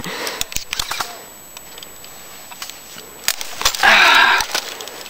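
Scattered clicks and knocks of an airsoft M4-style replica rifle and kit being handled, with a short rustle about four seconds in.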